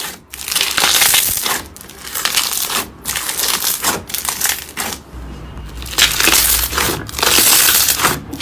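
Slime being squeezed and pressed by hand in a series of about six noisy bursts, each around a second long with short breaks between.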